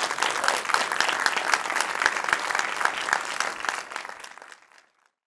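Theatre audience applauding, a dense patter of many hands clapping that fades out near the end.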